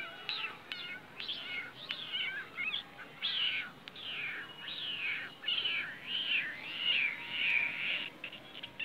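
Many high-pitched mewing squeaks from small animals: short arching and falling cries close together, some overlapping. A few sharp clicks near the end.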